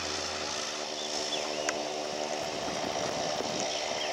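Cessna 310R's twin piston engines and propellers running steadily as the aircraft begins its takeoff roll, with a few faint high chirps over the top.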